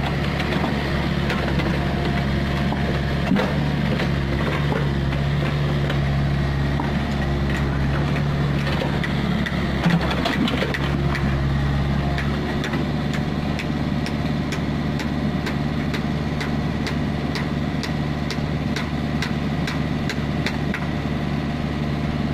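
Komatsu PC45MR mini excavator's diesel engine running steadily under working load as it digs. About halfway through the drone changes and a quick, even ticking comes in.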